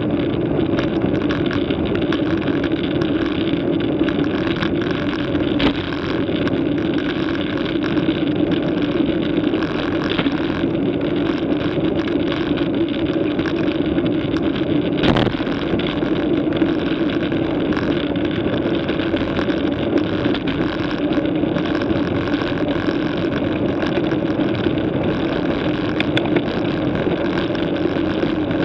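Steady rush of wind and road noise from a bicycle riding at about 25 to 33 km/h, picked up by a bike-mounted camera's microphone. A single knock comes about fifteen seconds in.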